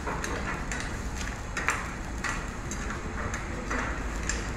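Metal spoon stirring seafood in a frying pan, scraping and knocking against the pan about twice a second, over a steady hiss as the seafood sears over high heat.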